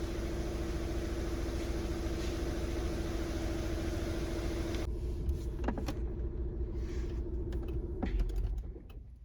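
A car engine running steadily with a constant hum and low rumble, with a few light clicks and taps from about five seconds in. The sound cuts off near the end.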